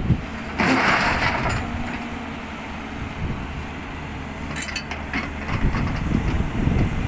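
Heavy machinery with its engine running low and steady. A brief loud hiss comes about half a second in, and a few sharp clicks near five seconds.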